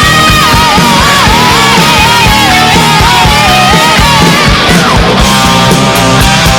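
Loud rock music with a steady beat and a wavering lead melody line.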